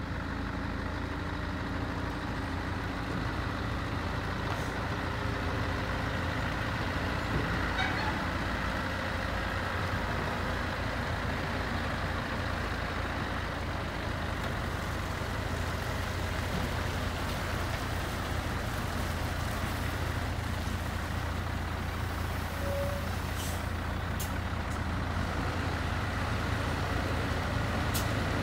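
Scania truck's diesel engine running steadily, with its tipper body raised.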